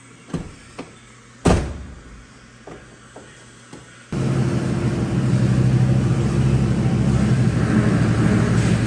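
A few light clicks and one loud thunk at the truck's door, then, about four seconds in, the 2006 Ford F250's 6.8L Triton V10 is heard running steadily, starting abruptly with no cranking.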